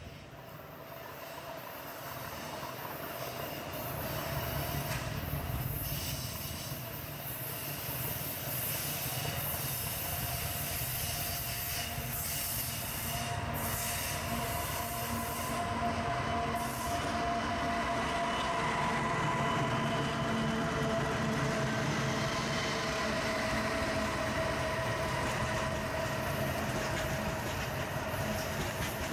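Diesel freight train passing, its locomotive engines running in a steady rumble that grows louder over the first few seconds. Steady high squealing tones from the wheels run throughout as the train works through curves.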